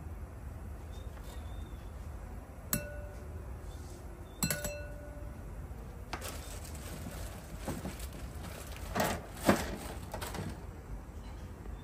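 Tableware clinking: two ringing clinks a couple of seconds apart, then several seconds of clattery handling with two louder knocks.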